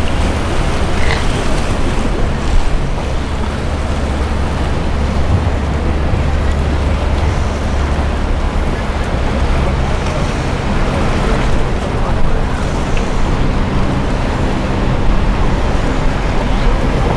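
Steady rush of wind on the microphone mixed with sea surf, with a constant low rumble.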